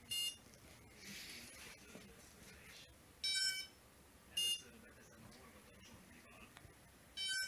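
Tarot 680 octocopter's electronics beeping during an ESC calibration that fails: a short lower beep, then about a second later a shorter, higher one, the pair repeating about every four seconds.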